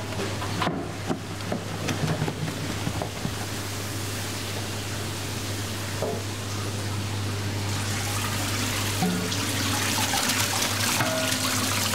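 A few knocks of a plastic jug against stainless steel pans as fried onions are scooped, over a steady low hum; from about eight seconds in, a spray tap runs water hissing onto the jug and a stainless steel sink.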